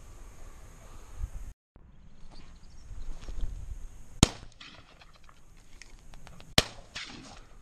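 Two shotgun shots about two and a half seconds apart, each followed by a short rolling echo.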